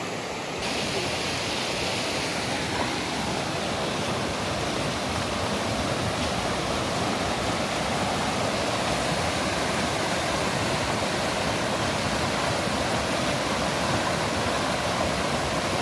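Swollen, fast-flowing mountain river rushing steadily, its water in flood.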